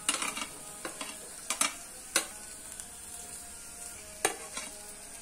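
Onions frying in oil with a steady sizzle as chopped green beans and grated carrot are scraped off a plate into the pan with a spoon. Several sharp clicks of the spoon against the plate and pan, the loudest about two seconds in and again past four seconds.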